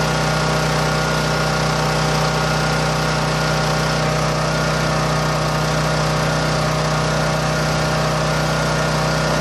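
A Champion 9000-watt dual-fuel portable generator with a 420cc single-cylinder engine runs steadily and fairly loud, freshly started and under no load.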